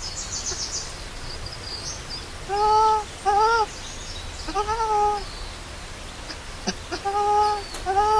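Baby macaque crying: a series of about five plaintive coo calls, each rising then falling slightly in pitch and lasting under a second, with pauses between them. Faint high chirping is in the background near the start.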